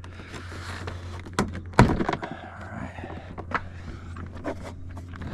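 Plastic pop clips of a car's interior door trim panel snapping loose as the panel is pulled off by hand: a sharp snap a little under two seconds in, with a few lighter clicks and rustles of the panel around it, over a steady low hum.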